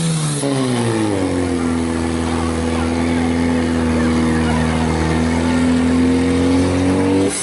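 Portable fire pump engine running at high revs while pumping water into the hose lines; its pitch swings up and back down, then holds steady, and the sound cuts off abruptly near the end.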